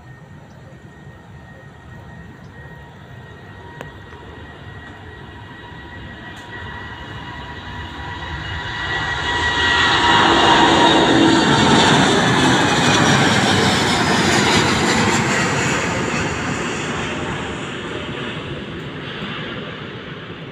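Airbus A330-900neo jet airliner's Rolls-Royce Trent 7000 turbofans at takeoff power, growing louder through the takeoff roll and liftoff. It is loudest as the plane passes close by about ten seconds in, with a whine that drops in pitch as it goes by, then fades as it climbs away.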